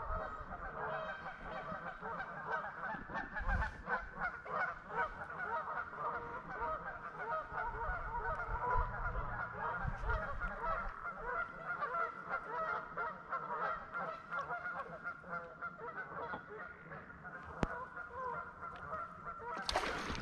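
A steady chorus of goose-like honking calls. Just before the end, a loud splash as a fish strikes a topwater frog lure on the surface; the angler is pretty sure it was a pickerel.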